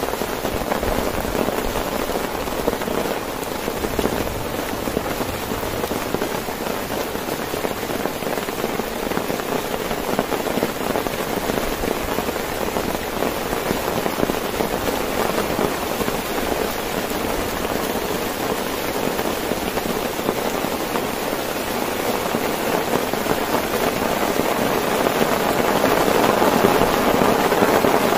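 Heavy rain falling steadily on a tent, a dense even hiss of drops that grows a little louder near the end.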